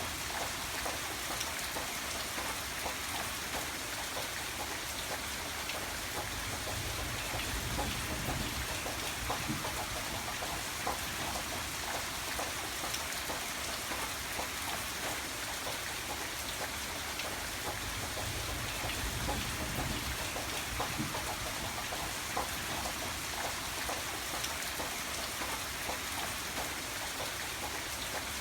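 Steady rain falling, an even dense patter with many individual drops ticking through it.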